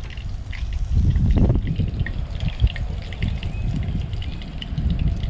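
Fish frying in oil, a light scattered crackle, over a low rumble that swells about a second in.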